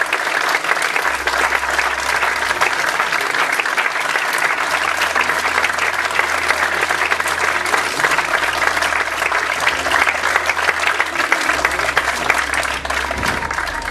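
Audience applauding steadily, the clapping beginning to die away near the end.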